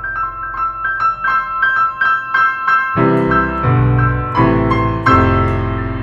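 Instrumental music with no singing: a piano plays a quick, even figure of repeated high notes, and lower sustained chords come in about three seconds in.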